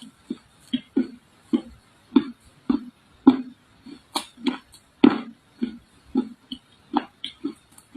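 Close-up crunching of dry red clay being chewed, in a steady run of short crunches about two a second, the loudest about three and five seconds in.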